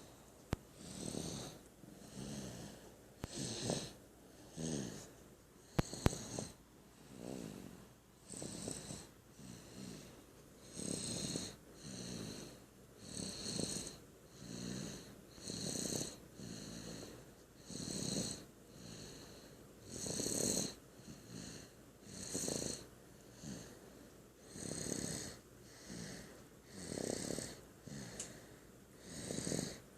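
Steady rhythmic snoring, one breath roughly every two and a half seconds, each with a low rasp and a higher hissing whistle.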